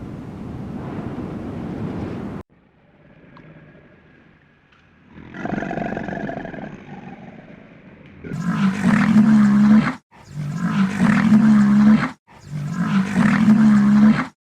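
Three loud, low-pitched animal calls, each lasting nearly two seconds and cut off abruptly, after a stretch of rushing noise that stops suddenly about two seconds in.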